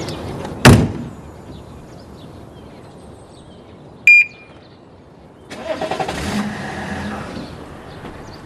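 A car door slams shut about a second in, a short electronic beep sounds midway, then the car's engine cranks over for about two seconds without catching: a car that turns over but won't start.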